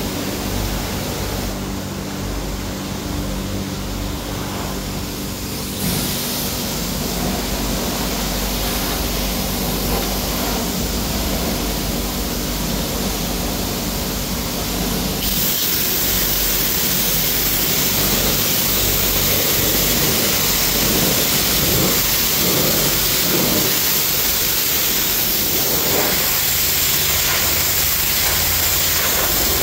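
Self-service car wash pressure washer running: a steady hiss of water spraying over a low machine hum. The spray gets louder and brighter about halfway through.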